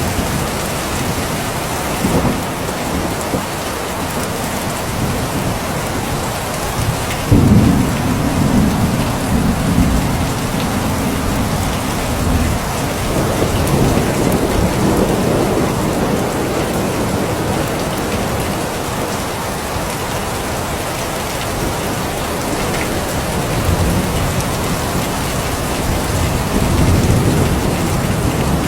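Steady heavy rain falling, with thunder. A clap about seven seconds in rolls on as a low rumble for several seconds, and softer rumbles swell again later.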